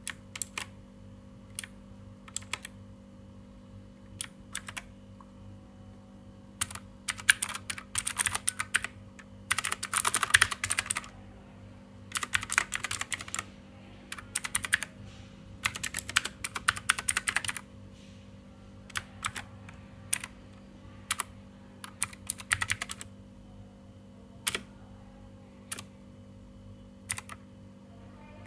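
Keys on an Ajazz AK33 mechanical keyboard being pressed. At first there are single clicks about a second apart. In the middle come several bursts of rapid typing, each a second or two long, and near the end it thins back to single presses.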